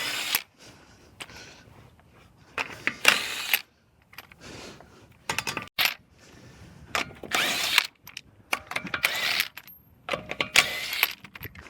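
A handheld power tool running in about six short bursts of half a second to a second each, with quiet gaps between.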